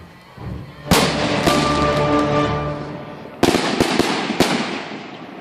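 Fireworks going off: a sharp bang about a second in and another soon after, then a quick cluster of three or four more bangs past the middle, each with a crackling tail.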